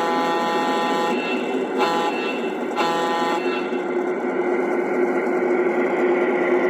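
Lionel model diesel locomotive's electronic sound system: the horn sounds three times (a long blast, a very short one, then a medium one) over a steady diesel engine rumble that runs on after the horn stops.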